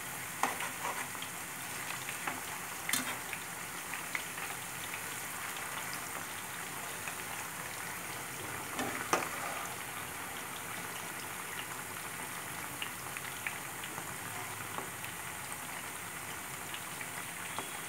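Purple yam fries deep-frying in hot oil: a steady sizzling and bubbling dense with fine crackles, with a few sharper clicks standing out about half a second, three seconds and nine seconds in.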